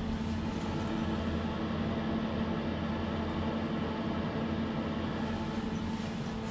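2000 Hissmontering holeless hydraulic elevator in travel: a steady, even hum from its hydraulic drive that swells up at the start and holds.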